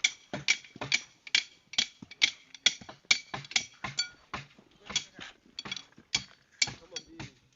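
Metal digging tool striking hard ground over and over, about two blows a second, each blow with a short metallic clink.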